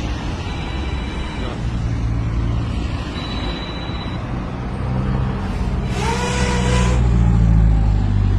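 Motor vehicle engine running with a steady low rumble. About six seconds in, a louder sound lasting about a second rises briefly in pitch and then holds.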